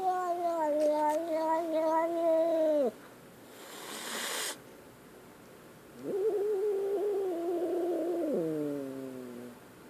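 Frightened kitten yowling in two long drawn-out calls, the second one falling in pitch as it ends, with a brief noisy burst between them.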